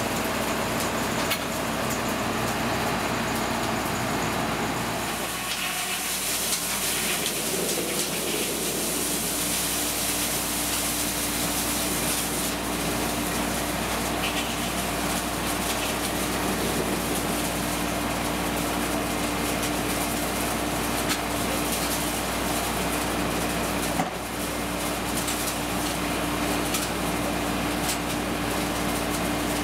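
Old circular sawmill's machinery running steadily. A steady hum comes in about a third of the way through, and there is a single knock about three-quarters of the way in.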